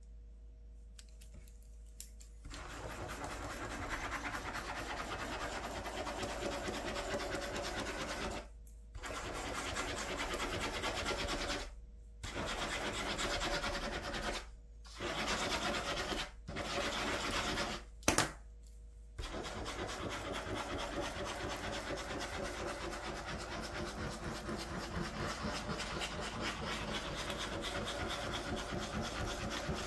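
Ballpoint pen scribbling continuous loops on paper over a clipboard, a steady scratchy rubbing that starts about two seconds in and stops briefly several times. A sharp click comes about eighteen seconds in.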